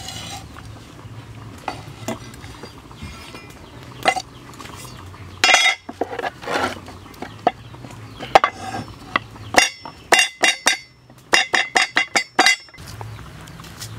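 Wooden pestle pounding chopped lemongrass and chili in a wooden mortar: two quick runs of sharp knocks, about five a second, in the second half. Before that, scattered taps and scrapes of a cleaver on a wooden chopping block as the chopped herbs are moved into the mortar.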